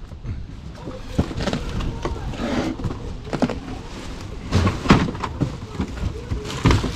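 A large cardboard box is slit open with a knife and unpacked: cardboard scrapes and rustles as the box is tipped and its flap opened, then plastic wrapping crinkles as the packed item is pulled out. The loudest crackles come about five seconds in and again near the end.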